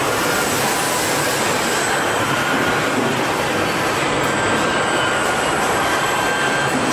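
Steady machine noise of a car-body assembly line where industrial robots are working: a constant hiss and rumble with faint steady high-pitched tones over it.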